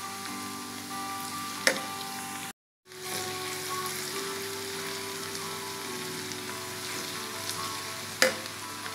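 Food frying in oil in a cooking pan, a steady sizzle, with two sharp knocks of a utensil against the pan, one about two seconds in and one near the end. The sound drops out briefly about two and a half seconds in. Background music plays over it.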